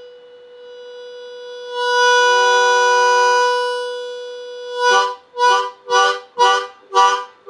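Harmonica played into a microphone: a held note that swells into a loud chord about two seconds in and then fades, followed by a run of short, loud blasted notes about two a second.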